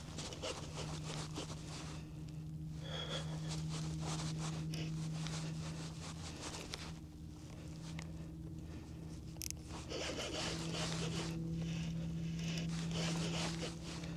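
Irregular scraping and zipper-like whirring from rod-and-reel handling while a hooked largemouth bass is fought from a kayak, over a steady low hum.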